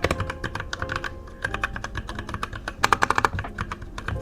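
Typing on a Zifriend KA646 60% mechanical keyboard with linear red switches: a steady run of keystroke clacks, with a quicker, louder flurry about three seconds in.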